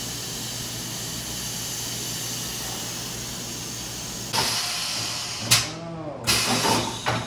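Compressed air hissing steadily at a tire's valve stem through a tire-changer inflator chuck as the pressure is set, with a louder rush of air about four seconds in. Then several sharp knocks and clunks as the wheel and tire are handled on the tire changer.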